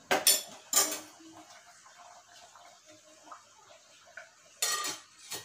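Steel ladle set down in a small steel bowl with two sharp metallic clinks, then a steel lid lowered onto a steel cooking pot with a ringing clatter near the end and one last light click.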